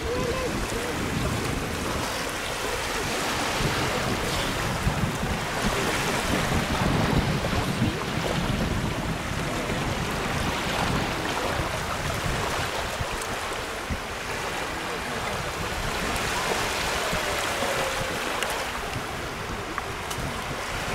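Sea surf washing in and out, swelling and fading over several seconds, with wind rumbling on the microphone.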